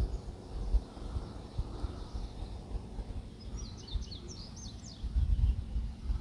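A small bird chirping a quick run of high notes for about a second and a half near the middle, over low rumbling background noise that swells near the end.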